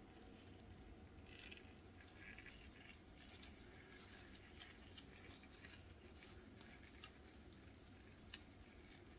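Faint handling sounds from gloved hands working a small plastic keychain puzzle and its metal ball chain: soft rustling with scattered small clicks, more frequent from about three seconds in.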